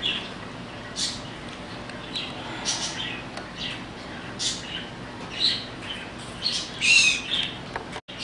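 A small bird chirping in short, irregular high-pitched calls, about eight in all, the loudest near the end.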